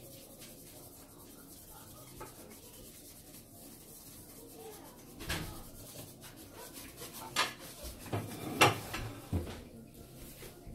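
Scotch-Brite-type scouring pad soaked in WD-40 rubbing over a scratched aluminium piston skirt, a soft steady scrubbing. From about five seconds in come several sharp knocks as the piston and rod are handled over a stainless steel sink, the loudest near the end.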